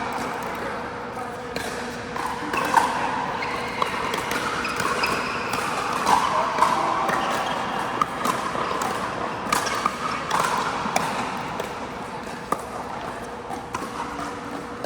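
Pickleball paddles hitting a plastic pickleball in a rally: sharp, irregular pocks at uneven spacing, over a faint steady hum.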